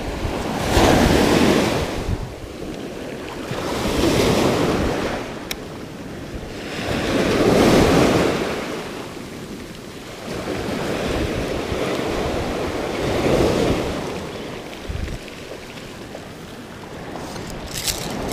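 Surf breaking and washing up the beach, swelling and fading every few seconds, with wind buffeting the microphone. A quick run of clicks comes near the end.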